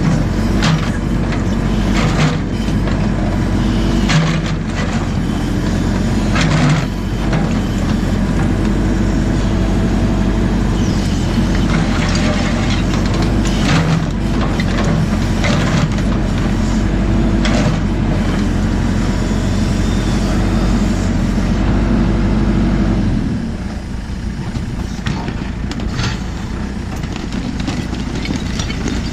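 JCB 4CX backhoe loader's diesel engine working hard, with repeated clanks and knocks from the bucket and arms. About 23 seconds in, the engine drops back to a lower, quieter speed.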